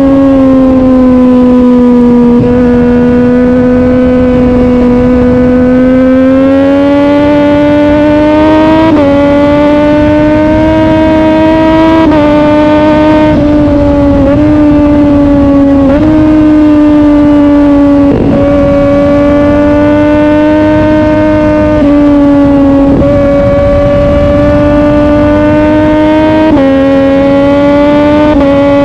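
Sport motorcycle engine running continuously with a strong, fairly steady note. The pitch climbs slowly in places and shifts by small steps or brief dips every few seconds.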